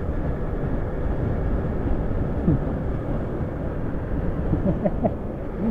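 Honda CG 160 Start motorcycle's single-cylinder engine running at cruising speed, under a steady low rush of wind on the microphone.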